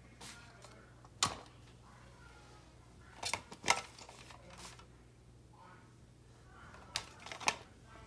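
Sharp clacks of hard plastic and metal fire alarm horn and strobe units being handled and knocked against one another, about six separate knocks with the loudest near the middle.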